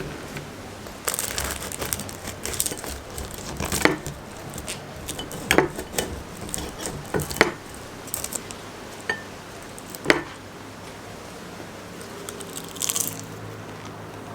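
Paper wrapping of a bakery pastry crinkling and rustling as it is handled, with a scattering of sharp clicks and light knocks.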